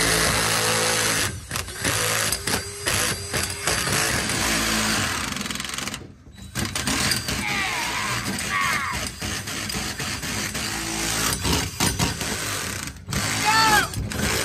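DeWalt cordless drill running a 2-1/8-inch hole saw through sheet steel, a harsh grinding with high squeals from the teeth biting the metal. The drill stops and starts several times, with a brief pause about six seconds in.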